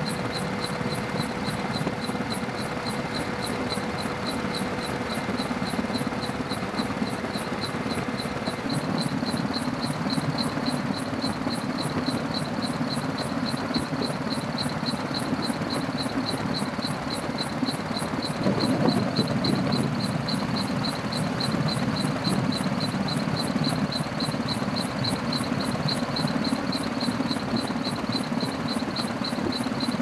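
Aircraft cabin noise: a steady engine drone with a fast, even pulsing laid over it, briefly louder about nineteen seconds in.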